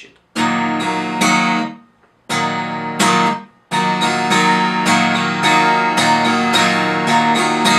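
Acoustic guitar strummed slowly in the galop pattern: a downstroke with all fingers, an upstroke with the thumb, then a downstroke again. The chord strokes come in short separate groups at first, then run on without gaps from about four seconds in.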